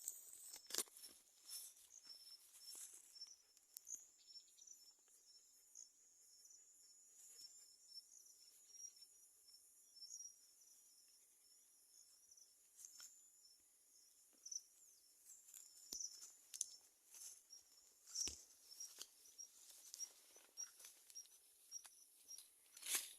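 Faint, steady high-pitched chirping of insects such as crickets, with short repeating pulses, over scattered soft clicks and rustles.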